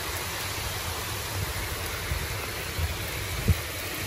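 Hurricane wind and heavy rain: a steady hiss of rain with gusty low rumbling of wind buffeting the microphone, and a brief low thump about three and a half seconds in.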